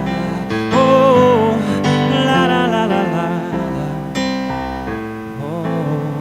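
Live acoustic pop song: a singer holds wordless wavering notes over sustained piano and guitar chords.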